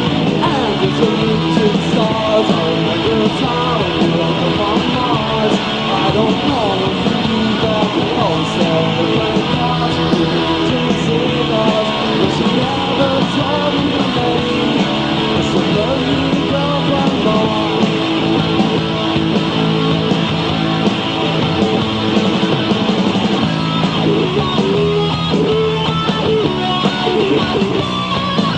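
Live rock band playing a loud instrumental stretch led by electric guitar, with bass and drums underneath and no break.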